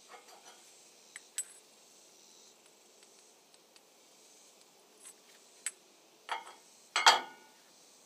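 Steel parts clinking as hardened steel bushings are handled and fitted to a hydraulic swing cylinder: a few light clicks, then two louder clanks near the end, the last the loudest.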